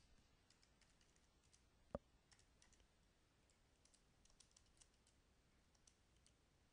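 Faint computer keyboard typing: scattered soft key clicks, with one sharper click about two seconds in.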